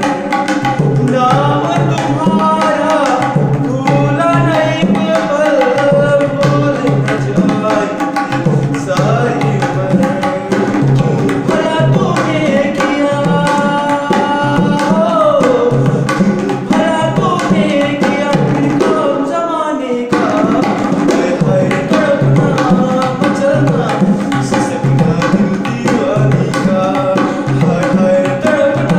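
A man singing while accompanying himself on tabla, the pair of hand drums keeping a steady rhythm of strokes under his voice.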